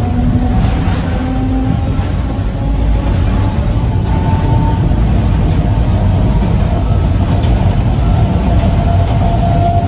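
Sangi Railway Hokusei Line narrow-gauge electric train heard from inside the passenger car while running. A steady low rumble of wheels on rail and running gear, with faint whines that drift slightly in pitch.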